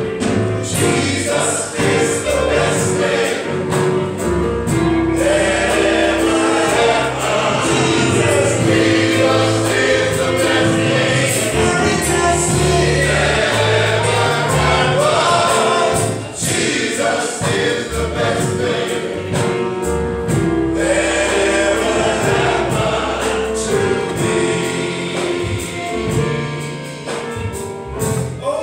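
A male gospel chorus singing in harmony, with held notes over a steady low accompaniment.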